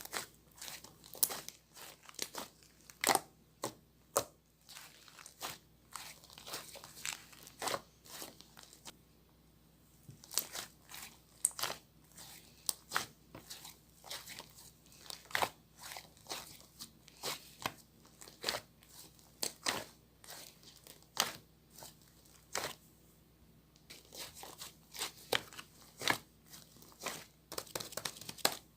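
Fluffy slime being squished and pressed by hand, giving irregular crackles, clicks and small pops several times a second, with a couple of short pauses.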